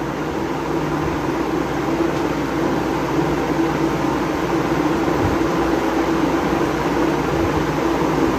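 A steady, unbroken hum of an electric fan running.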